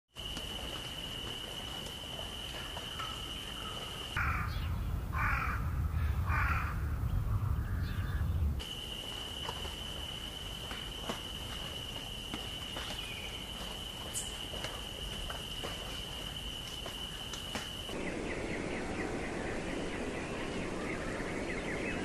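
Outdoor bird ambience with a steady high-pitched tone and scattered soft clicks. About four seconds in, three loud harsh caw-like bird calls ring out over a low rumble, and the steady tone returns after them.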